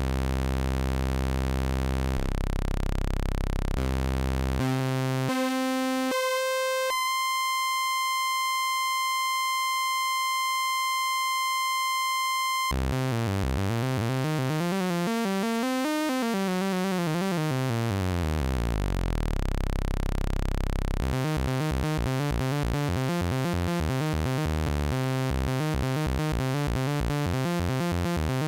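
Homemade analog VCO built on a V3340 (CEM3340-clone) oscillator chip, played one note at a time from a MIDI keyboard and roughly tuned to 1 V/octave by ear. It gives a buzzy, overtone-rich tone that steps up in pitch to a plain held high note, then plays a run of notes rising and falling, and quick changing notes near the end.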